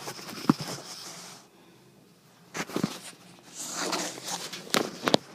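Boots being put into a trash chute, with the chute's hatch handled: a sharp clank about half a second in, then rustling and knocking, and two more sharp clanks near the end.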